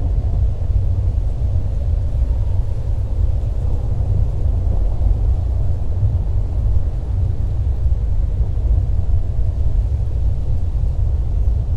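Deep, steady low rumble with a fainter hiss above it, a composed sound-design drone evoking a volcanic eruption.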